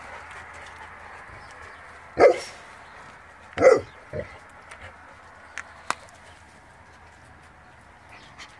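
A dog barking: two loud barks about a second and a half apart, a couple of seconds in, followed by a softer short bark.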